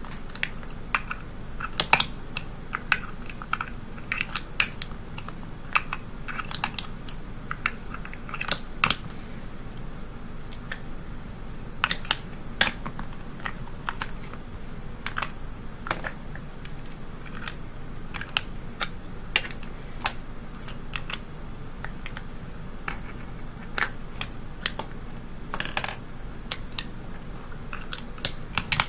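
Small plastic stacking cups clicking and clacking against each other as they are stacked and unstacked by hand, in irregular sharp clicks.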